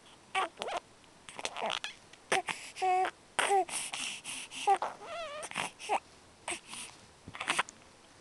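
A baby making noises with her mouth: a string of short vocal sounds, one with a wobbling pitch about five seconds in, mixed with breathy blowing puffs.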